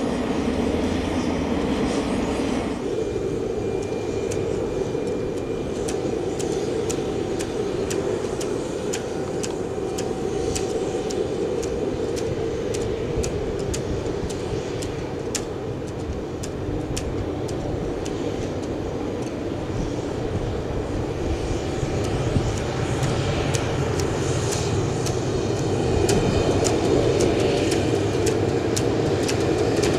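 Steady jet airliner engine noise from aircraft on the ground, a continuous drone that grows louder in the last few seconds.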